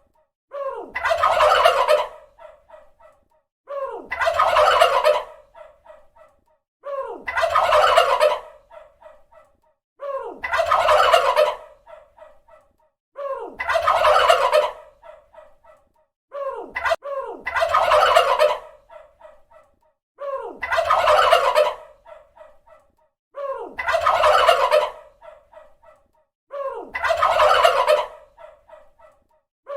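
Turkey gobbling, the same gobble repeated about every three seconds, nine times: each a loud call of about a second followed by a trail of fainter short notes.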